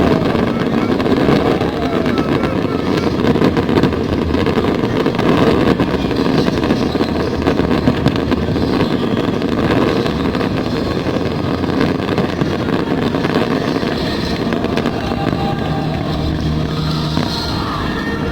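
Fireworks display going on continuously, with dense crackling over a steady low rumble and no single big burst standing out.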